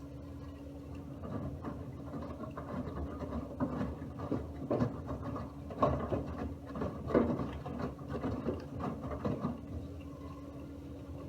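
Miele W1 front-loading washing machine running its wash phase: a steady hum from the machine under irregular swishes and thuds as the laundry tumbles in the turning drum. The tumbling starts about a second in and fades out near the end.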